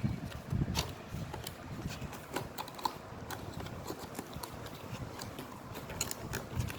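Packaging of a digital kitchen scale being handled and opened: irregular clicks, crinkles and soft knocks.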